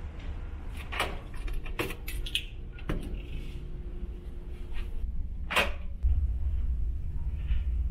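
Ferry cabin door being opened by its lever handle: a few sharp clicks of the handle and latch, the loudest about two thirds of the way in. Underneath runs the ship's steady low hum, which gets louder near the end as the door swings open.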